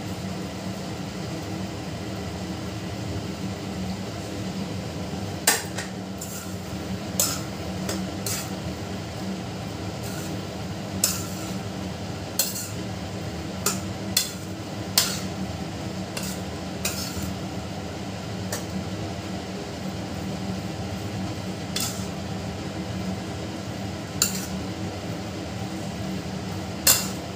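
Metal spoon stirring macaroni in a kadai, knocking and scraping against the pan at irregular moments every second or two from about five seconds in, over a steady low hum.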